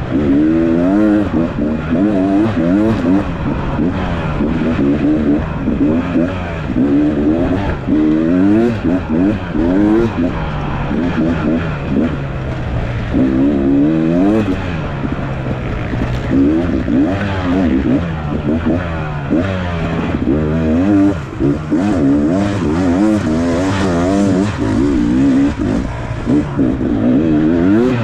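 Off-road dirt bike engine ridden hard, revving up and down over and over, its pitch rising and falling every second or two as the throttle is worked.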